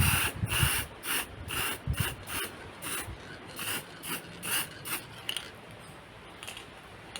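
Sandpaper rubbed back and forth by hand over a painted metal hubcap, in quick, regular strokes of about two a second that thin out after about five seconds.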